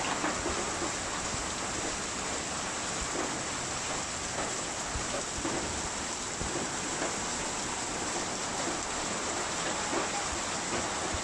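Steady rain falling, an even hiss of rain that holds at the same level throughout.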